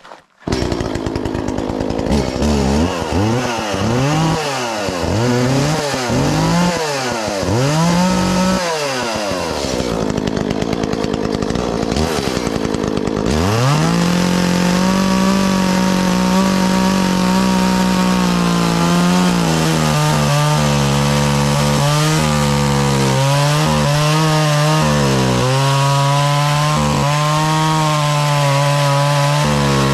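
Echo CS-370 two-stroke chainsaw revved up and down several times, then held at full throttle from about thirteen seconds in while it cuts into a squared timber. Its pitch dips and recovers a few times as the cut loads the engine.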